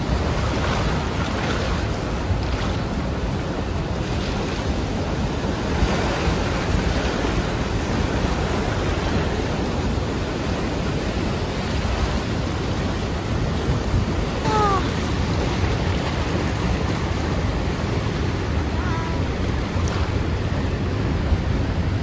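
Turbulent white water rushing and churning below a waterfall, with wind buffeting the microphone. The rush is steady throughout.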